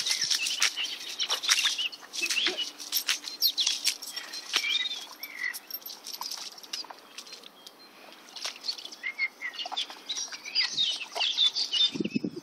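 Wild birds singing and chirping in chorus: many short high chirps and trills, thinning out around the middle and busier again after that.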